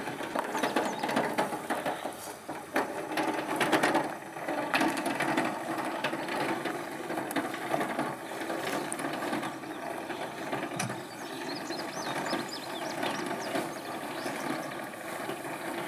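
A lawn-mower-based off-road machine being towed over grass with its engine off, its wheels and running gear giving a steady fast clicking rattle.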